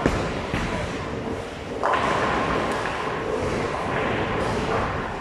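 Bowling ball landing on the lane with a thud as it is released, then rolling. About two seconds in comes a burst of clatter as it reaches the pins, over the steady din of the bowling alley.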